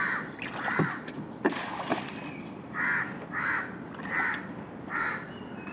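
A crow cawing again and again, about six short harsh calls in a loose series. A few sharp knocks come between about one and two seconds in.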